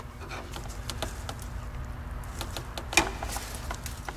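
Faint handling noises of parts being fitted in a car's engine bay: small clicks and taps, with one sharper click about three seconds in.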